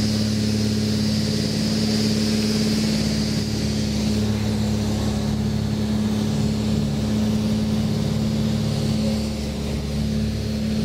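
Cessna 310's twin piston engines and propellers droning steadily, heard inside the cockpit on approach.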